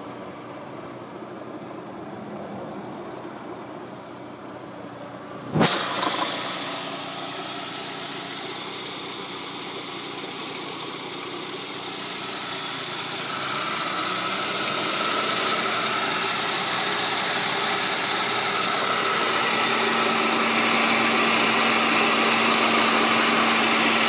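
Saab 9-3 2.0 turbo four-cylinder engine idling with a rattle from the engine bay, the sign of a failing AC compressor clutch. A sharp click comes about five and a half seconds in, and the sound grows louder and hissier over the second half.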